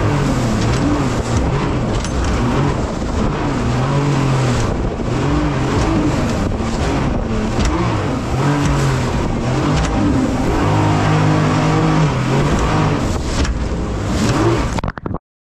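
Mini jet boat's engine and jet drive running hard through whitewater rapids, the engine note rising and falling as the throttle is worked, over the rush of water and spray hitting the hull. It cuts off abruptly near the end.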